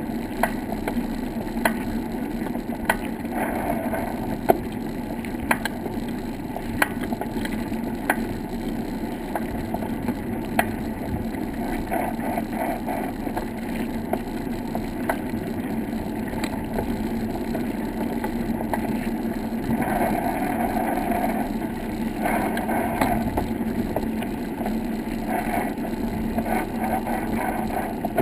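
A bicycle rolling along a wooden boardwalk: a steady rushing noise, with a sharp knock about once a second as the tyres cross the plank joints.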